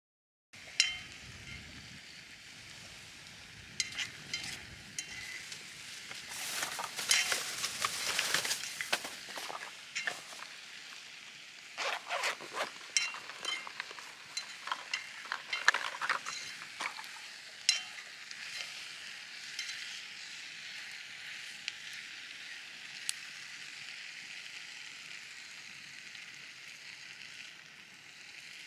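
Steak sizzling on a grill over a wood campfire: a steady hiss peppered with sharp crackles and pops, starting suddenly just under a second in and growing busier and louder twice, around 7 to 9 seconds and again from about 12 to 17 seconds.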